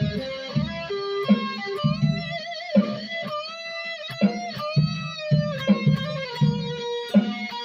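Electric guitar, a B.C.Rich Bronze Series Mockingbird reworked into an Explorer-style body, played: held single notes with vibrato and bends over low notes picked in a steady pulse.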